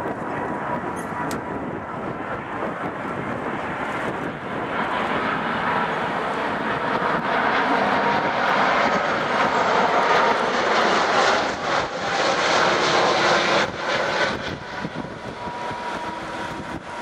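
Airbus A330-200 jet airliner on final approach with gear down, flying past low with its engines running. The roar grows louder to a peak about two-thirds of the way through, then eases off, with a thin steady whine throughout.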